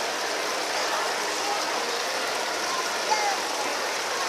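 Water from an artificial rock waterfall fountain spilling down its stone ledges and splashing into the pool in a steady rush, with faint, indistinct voices behind it.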